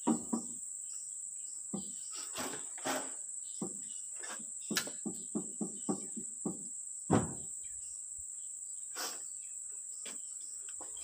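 Steady high insect chorus, with scattered short metal clinks and knocks from hand tools and parts being handled on a dismantled diesel engine. The loudest knock comes about seven seconds in.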